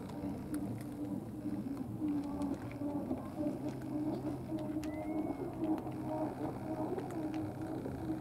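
Steady low engine drone with a wavering hum, faint scattered clicks over it, and a short high whistle about five seconds in.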